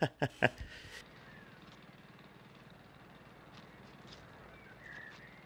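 A short burst of laughter and voice from the reactor, then the quiet outdoor ambience of a film soundtrack: a low steady hum with a few faint bird chirps near the end.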